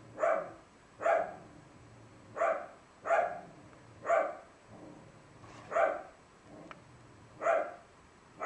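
A dog barking over and over, a short bark about every second with uneven gaps.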